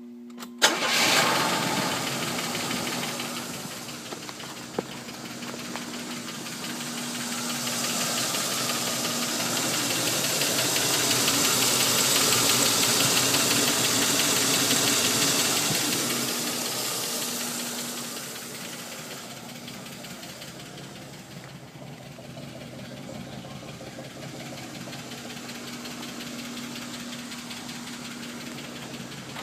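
Buick Electa engine starting less than a second in and then idling with a rapid valve click. The click came on out of nowhere when the engine was started hot. The engine grows louder toward the middle and then eases off again.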